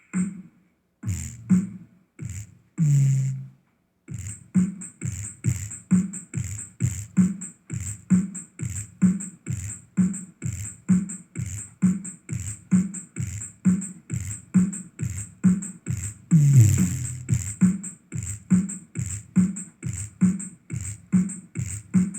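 Bass-heavy electronic beat, played as a woofer bass test: a deep kick drum pulses about twice a second with a crisp high tick on each beat. After a few scattered hits at the start, the steady beat comes in about four seconds in, with a brief swell of fuller sound in the middle.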